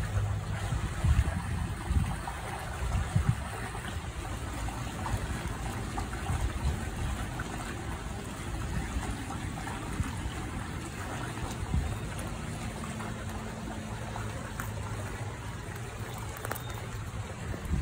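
Water trickling steadily in an otter pool, under a low, uneven rumble of wind on the microphone.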